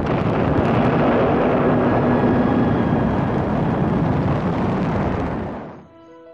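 Rocket exploding: a loud, continuous rush of blast noise that fades out near the end, where soft chiming music notes begin.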